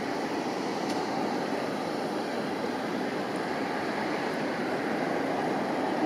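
Steady rushing background noise with no distinct events.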